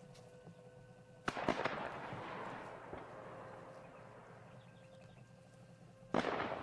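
Two loud blasts of heavy weapons fire on a village, about five seconds apart, each a sharp crack followed by a long rolling echo that dies away over a couple of seconds. A few faint distant shots sound between them.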